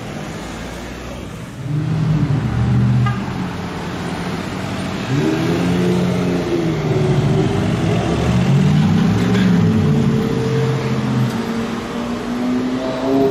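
Sports car engines revving and accelerating, their note swinging up and down several times. Near the end one engine pulls away with a long, steadily rising note.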